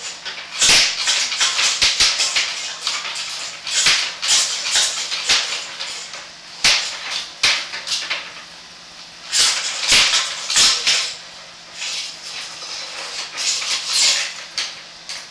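Sewer inspection camera and its push cable being pulled back through the drain pipe, rattling and scraping in irregular bursts with a few sharp knocks.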